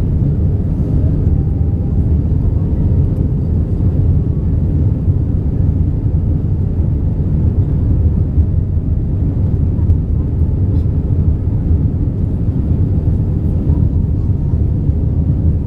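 Steady, even drone of an Airbus A320-200 in flight, heard inside the cabin: engine and airflow noise, deep and unchanging.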